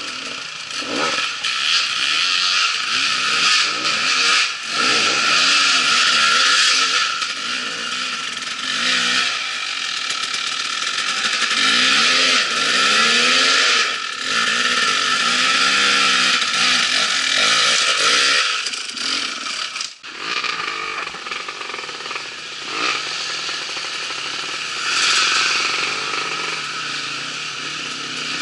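Off-road dirt bike engine revving up and down in uneven bursts as the bike climbs a rocky trail, with a brief drop in sound about twenty seconds in.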